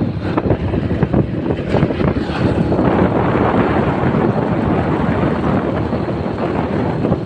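Wind rushing and buffeting over the microphone of a moving motorcycle, a dense steady rumble mixed with the bike's running noise.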